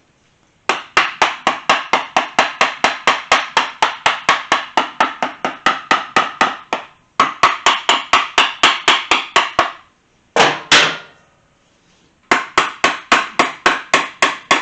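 A hammer rapidly tapping on the KZ400 engine's side cover, about five blows a second, to break the cover loose from its dowel pins. Two long runs of taps, a pause with two single harder blows, then another run near the end.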